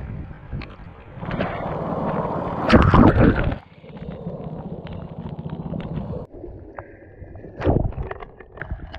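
Shallow seawater sloshing and lapping over pebbles, heard up close from an action camera held at the waterline and dipping under, so the water sounds partly muffled. The loudest splash comes about three seconds in, and the sound changes abruptly twice.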